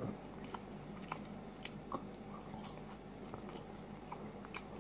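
Quiet close-up chewing and mouth sounds of someone eating fries, with small scattered clicks.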